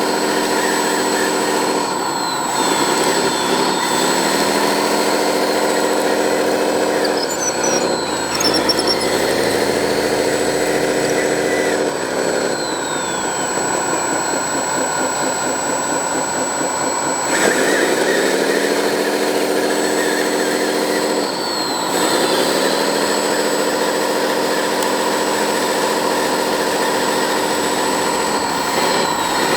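Radio-controlled construction model's electric motor drive whining steadily, its pitch sagging under load and climbing back several times.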